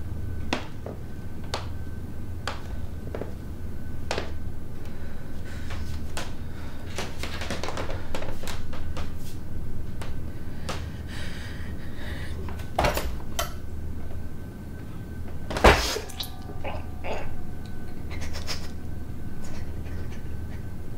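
Scattered knocks and thuds of things being handled in a small room, over a steady low hum. The loudest thud comes about two-thirds of the way through.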